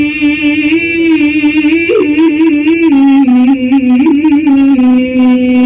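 A male qari's voice in melodic Quran recitation (tilawah), drawing out the verse-ending word 'al-'ālamīn' in one long melismatic phrase. A high held note breaks into quick ornamental turns about two and four seconds in, then settles a little lower into a steady held note.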